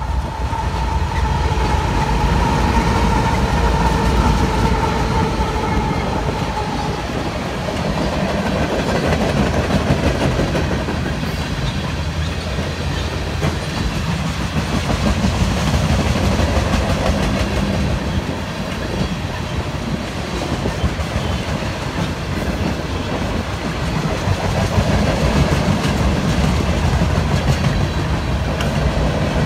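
A Union Pacific freight train passing close by: its diesel locomotives go past with a steady whine for the first several seconds, then the freight cars roll by with a continuous low rumble and the clickety-clack of wheels over the rail joints.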